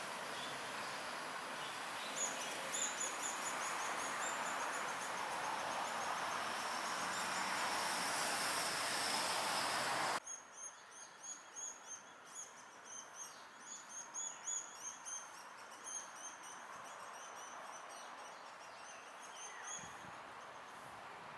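Sunda pygmy woodpecker chicks calling from the nest in a rapid series of short, high chirps. For the first half they sit over a steady background rush that cuts off abruptly about halfway, after which the chirps stand out more clearly before fading near the end.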